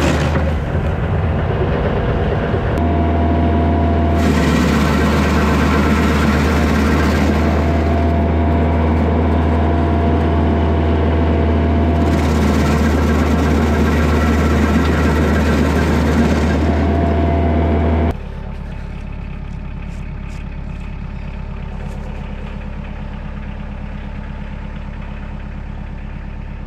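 Kioti DK40se tractor's diesel engine running under load, driving a Woodland Mills WG24 PTO stump grinder that chews into a pine stump. There are two long spells of louder, hissing grinding. About eighteen seconds in the level drops and only a steadier, quieter engine drone remains.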